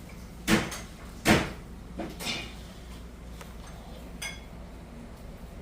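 Two loud knocks under a second apart, followed by a few lighter clicks.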